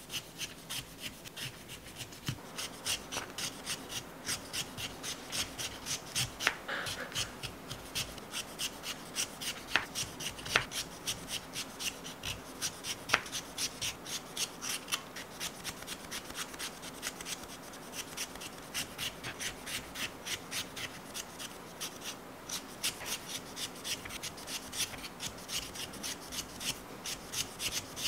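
Hand peeler scraping the skin off a raw sweet potato in quick, regular strokes, roughly two a second, with a few sharper clicks.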